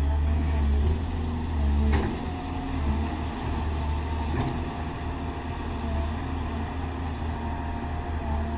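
Excavator's diesel engine running steadily, with a short knock about two seconds in and another a little past four seconds.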